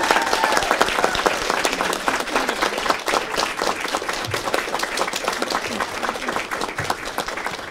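A roomful of people applauding, many hands clapping fast and unevenly; the applause dies down near the end.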